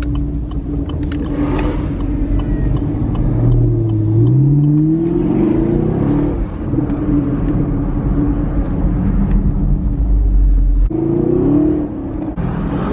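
Supercharged V8 of a Chevrolet Camaro ZL1 running under way with a steady low rumble. Its pitch climbs once as it accelerates a few seconds in, then settles into a steady cruise, and it climbs briefly again near the end.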